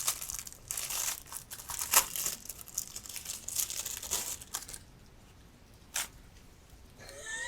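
Packaging crinkling and tearing as a small item is unwrapped by hand, with rustling for the first four and a half seconds or so, then one sharp click about six seconds in.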